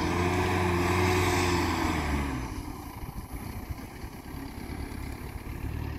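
Engine of a loaded pickup truck running hard under load for about two and a half seconds, its pitch rising slightly and falling, then dropping back to a quieter run.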